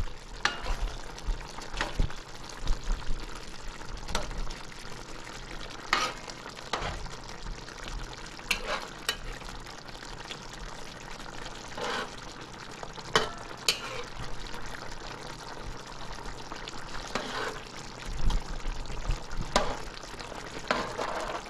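Metal spoon stirring and ladling curry gravy in a large metal pot, with scattered sharp clinks and scrapes of the spoon against the pot over a steady simmering hiss from the curry.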